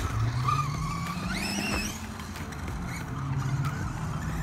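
Electric motor and drivetrain of a Pro-Line PRO-MT 4x4 1/10-scale RC monster truck whining as it drives over dirt, the pitch climbing about a second and a half in and then holding.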